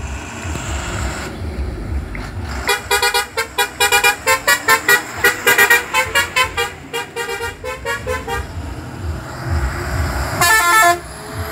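Passing buses sounding multi-tone horns: a fast string of short toots, about three a second, stepping between pitches for several seconds, then one longer horn blast near the end. A low bus engine and road rumble sits under the horns and swells as a bus goes by.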